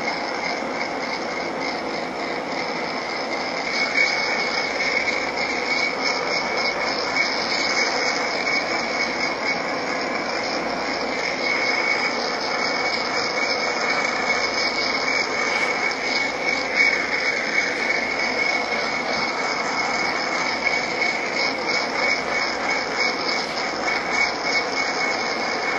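Small butane torch flame burning with a steady hiss, the torch kept moving over acrylic edges to flame-polish them.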